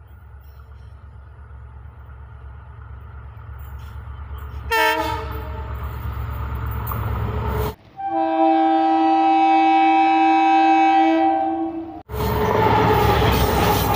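An Indian Railways locomotive hauling a passenger train approaches, its low rumble growing louder. Its horn sounds about five seconds in, and again in a long steady blast in the middle, each ending abruptly. Near the end comes the loud rushing rumble of the locomotive and coaches passing close.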